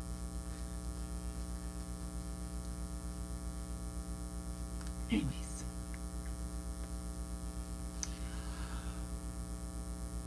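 Steady electrical mains hum, a low buzz with many even overtones. About five seconds in comes one brief, short vocal sound that falls in pitch.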